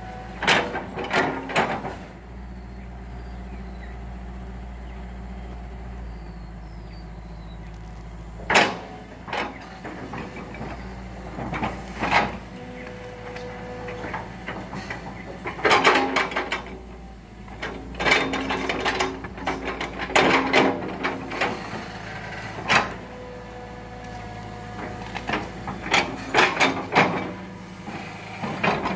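Hitachi tracked excavator's diesel engine running steadily while it pushes rubber trees over, with clusters of sharp knocks and cracks from the bucket and breaking wood, and some metallic squeals in between.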